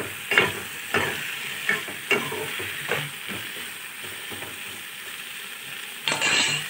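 French beans and potatoes frying in a metal kadai with a steady sizzle, while a metal spoon scrapes and knocks against the pan as they are stirred: several strokes in the first three seconds, fewer after. A brief louder noise comes near the end.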